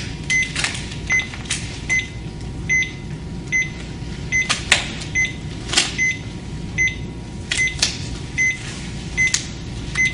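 A cardiac monitor-defibrillator beeping evenly, a short high beep nearly twice a second, over a steady low hum. Irregular clicks and rustles come from the electrode pads and their backing being handled on the chest.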